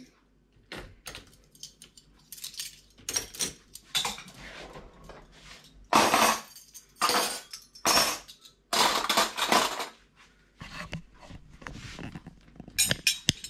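Stainless-steel cutlery clinking and rattling as it is lifted out of a dishwasher's cutlery basket and put into a drawer: irregular single clinks, with louder rattles of several pieces about six, seven, nine and thirteen seconds in.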